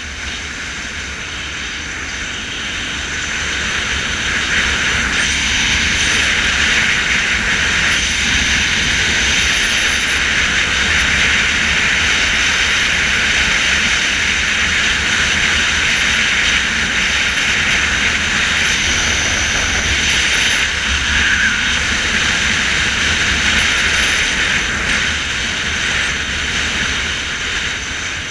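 Motorcycle riding along at speed: a steady rush of wind and engine noise from a camera mounted on the moving bike. It grows louder about four seconds in and eases a little near the end.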